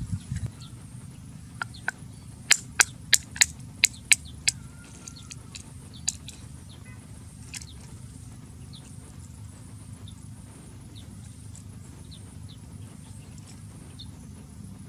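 A wooden stick tapping snail shells to crack them open. It starts with a quick run of seven or eight sharp knocks, about three a second, about two seconds in, followed by a few faint scattered taps.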